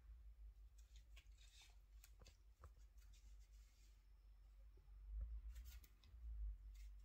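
Near silence, with faint scattered scratching and rustling of cats' paws on a cardboard sheet, and a low rumble that swells briefly twice near the end.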